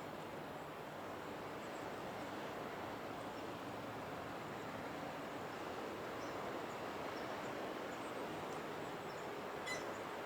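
Steady outdoor rushing noise, with a single brief, high bird chirp near the end.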